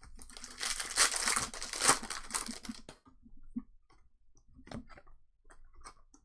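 Foil trading-card pack wrapper being torn open and crinkled for about two and a half seconds, followed by faint scattered clicks and taps of cards being handled.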